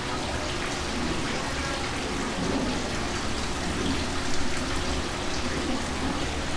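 Steady hiss of kitchen noise, like frying or running water, with a faint murmur of voices underneath.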